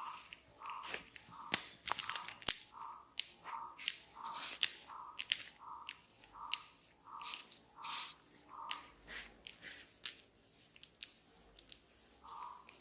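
Hair cracking during a head massage: hair being twisted and pulled makes sharp, crisp crackling snaps at an irregular pace. Behind them, a series of short mid-pitched calls repeats about twice a second and stops for a few seconds near the end.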